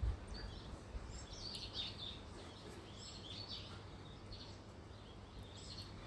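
Birds chirping faintly in short, scattered calls over a steady low background hum, with a brief low thump at the very start.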